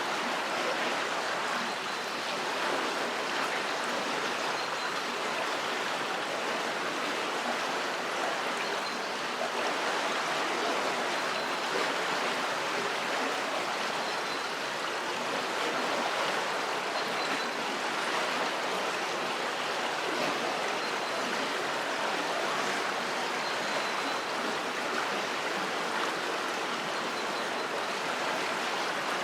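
River water flowing steadily under a bridge: an even, continuous rushing sound.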